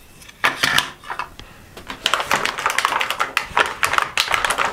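Hard plastic toy food pieces being handled: a few clicks, then quick, irregular clicking and clattering from about two seconds in.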